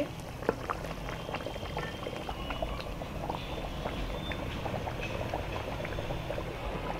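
Thick goat-trotter curry bubbling steadily in a metal kadhai, with many small irregular pops.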